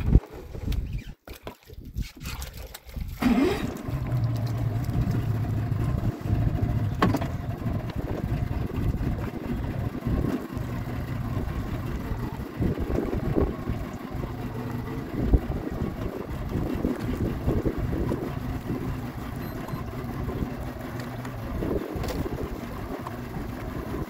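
Speedboat engine running out at sea, with water and wind noise; about three seconds in it rises in pitch and then runs steadily.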